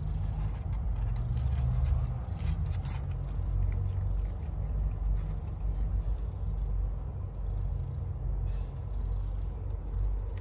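Mother cat purring steadily, a low continuous rumble, while her newborn kittens nurse, with a few faint clicks in the first few seconds.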